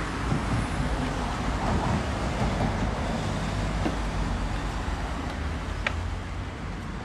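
Steady road traffic noise, with a single sharp click about six seconds in.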